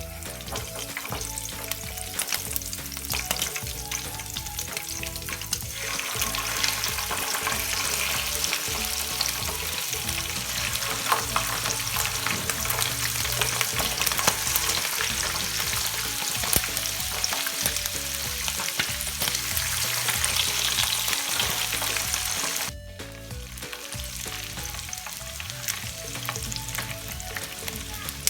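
Pork intestines deep-frying in hot oil for chicharon bulaklak: a dense, crackling sizzle. It grows louder about six seconds in and drops abruptly to a softer sizzle a few seconds before the end.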